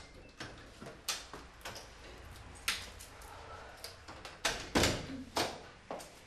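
Footsteps on a hard floor and the clicks and clunks of a wooden double door's iron lock being handled, with the loudest knocks about five seconds in.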